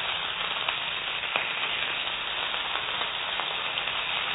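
Chicken sausage links sizzling in hot oil in a frying pan: a steady hiss with a few faint pops.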